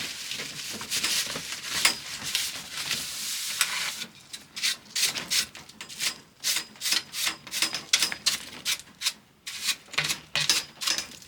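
Rubbing and scrubbing by hand, a dense scraping for about four seconds, then quick separate strokes, about three a second.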